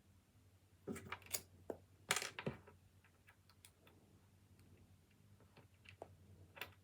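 Scattered small clicks, taps and rustles of hands handling small miniature-kit pieces and their packaging, with a cluster of louder clicks about one to two and a half seconds in and lighter ticks after.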